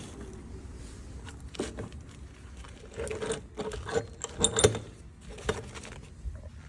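Irregular clicks and metallic clatter of things being handled, with a cluster of sharper knocks about halfway through, some with a short ringing note.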